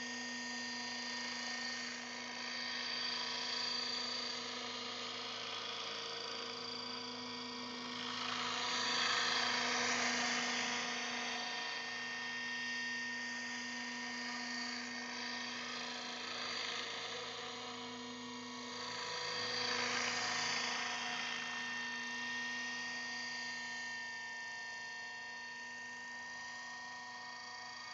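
Align T-Rex 600 radio-controlled helicopter flying: a steady whine from the rotor and drive. It swells louder twice, about nine seconds in and again around twenty seconds, as it passes closer.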